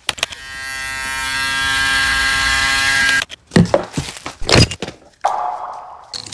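Electric shaver buzzing at a steady pitch for about three seconds, swelling at first and then cutting off suddenly. A few sharp knocks and a short hiss follow.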